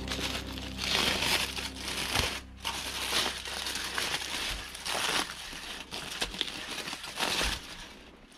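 Aluminium foil crinkling and crumpling in a run of irregular rustles as it is pulled open by hand.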